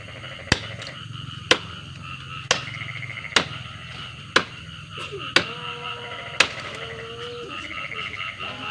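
Sharp, evenly spaced strikes, about one a second, like blows of a tool on wood. They sound over a steady, pulsing chorus of frogs and insects.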